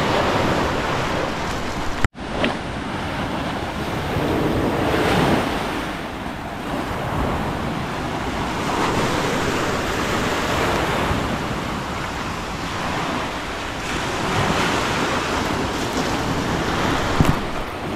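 Small waves breaking and washing up a sandy beach, the surf swelling and easing every few seconds, with wind rumbling on the microphone. The sound cuts out for a moment about two seconds in.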